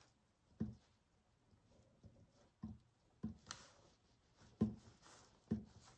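Light, uneven taps of a small paintbrush dabbing acrylic paint onto a canvas, about eight soft knocks over a few seconds.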